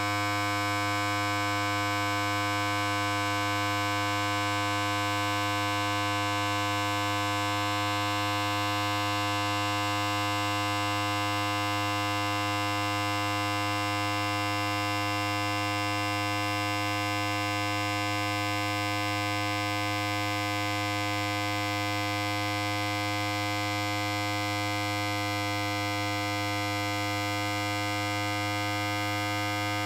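Electric hair clipper running continuously: a steady, unchanging buzz with a strong low hum and many overtones.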